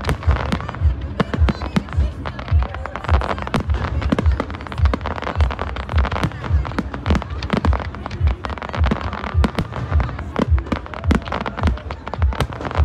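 Fireworks display: a rapid, unbroken barrage of aerial shells bursting, with deep bangs about two to three a second and crackle between them.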